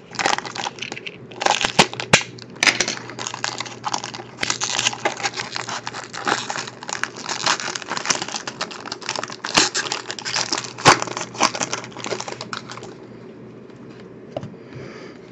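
Crinkling and tearing of a trading-card pack's wrapper and packaging being opened and handled, a dense run of rustles and sharp clicks that eases off near the end.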